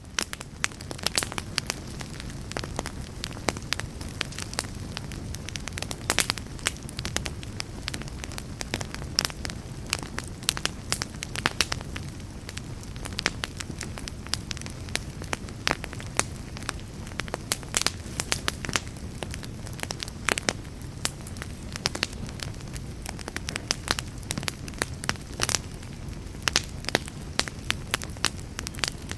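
Wood fire burning: irregular sharp crackles and pops over a steady low rumble of the flames.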